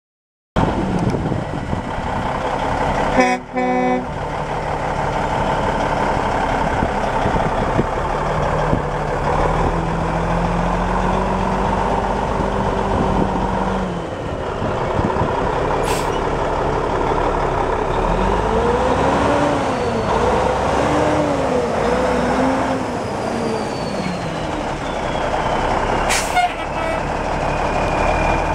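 Cummins N14 diesel engine of a 1996 Ford Aeromax L9000 semi tractor running as the truck drives. Its pitch climbs and then rises and falls with the revs through gear changes. A short horn blast sounds about three seconds in.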